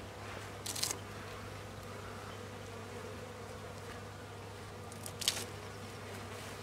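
Honeybees buzzing steadily over the open frames of a small mini-plus hive, with a metal hive tool scraping the wooden top bars in two short scrapes, about a second in and just after five seconds.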